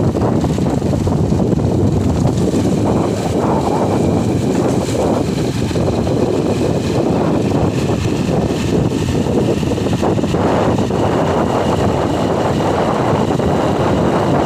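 A 2005 Hero Honda Passion Plus's single-cylinder four-stroke engine running steadily under way, with wind buffeting the microphone.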